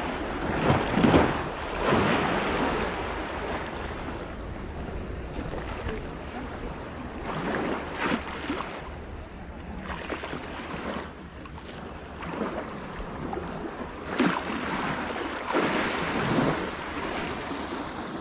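Sea waves washing in on the shore in several surges, with wind buffeting the microphone.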